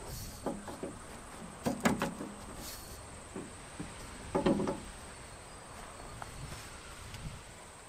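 Steel pipe knocking and clunking against a welded steel bracket as it is handled and set in place, with a few short knocks about half a second, two seconds and four and a half seconds in. A steady high insect chirr underneath.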